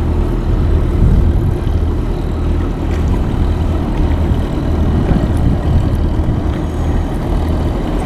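Small boat's engine running steadily at a low, even hum.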